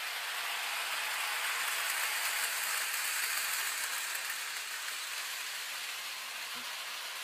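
Bachmann HO scale Toby the Tram Engine model train with its coach and trucks running past on the track, a hissing rattle that swells about two to three seconds in and then fades.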